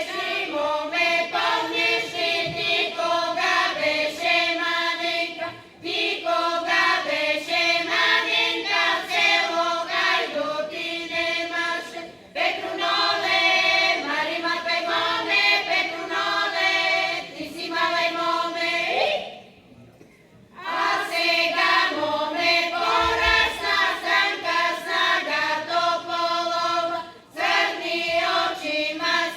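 Choir singing a song in phrases of about six seconds, with short breaks between them and a longer one a little after two-thirds of the way through.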